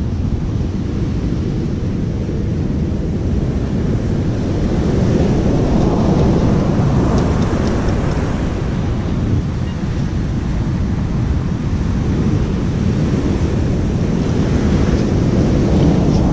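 Wind rumbling on the microphone over the wash of heavy ocean surf, swelling louder around the middle and again near the end.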